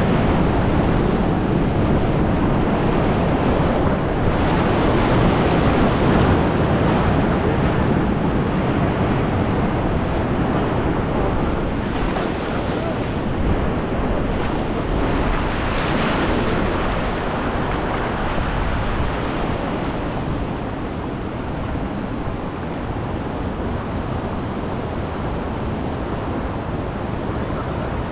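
Steady, loud rushing of creek whitewater, with wind noise on the microphone.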